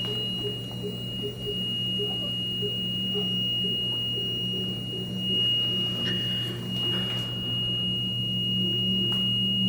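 A steady, unbroken high-pitched tone over a steady low hum, with faint soft ticks repeating a few times a second.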